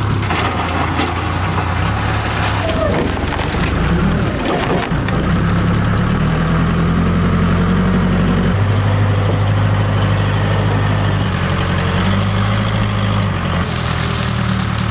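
Backhoe loader's diesel engine running, its engine speed shifting up and down a few times, with gravel and dirt rattling and pouring out of the front loader bucket.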